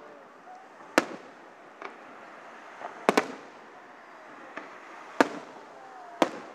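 Aerial fireworks shells bursting: about five sharp booms, two of them close together a little past three seconds, with fainter pops between them over a steady background hum.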